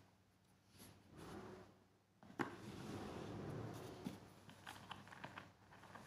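A paperboard gift box's drawer being pulled out and handled. There is soft rustling, a sharp tap about two and a half seconds in, then a steady papery rustle with a few light ticks.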